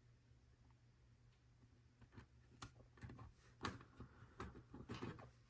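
Near silence, then faint scattered small clicks and light rustling from about two seconds in: hands handling Lego pieces and a sticker sheet while stickers are applied to the model.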